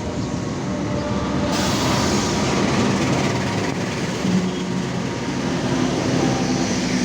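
A train passing, a steady loud rush and rumble of wheels on the rails that grows fuller and brighter about a second and a half in.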